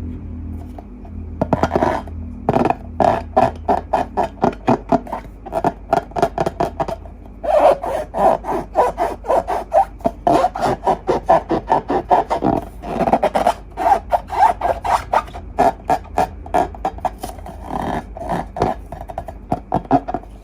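Slime being squished and worked, giving a rhythmic run of short wet scraping squelches, about two to three a second, with brief pauses.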